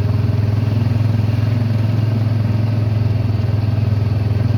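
Honda Pioneer UTV engine running at a steady low speed, a constant low drone with no change in pace.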